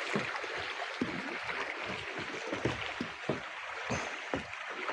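Water splashing and trickling around a paddled kayak, with many small irregular splashes and drips from the paddle strokes.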